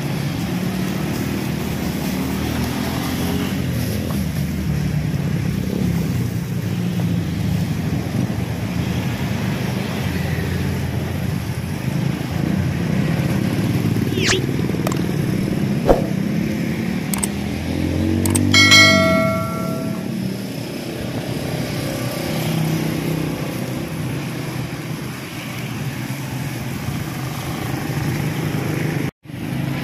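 Street traffic, mostly motorcycle and car engines passing at a steady level, with one louder pass and a brief pitched beep about two-thirds of the way in.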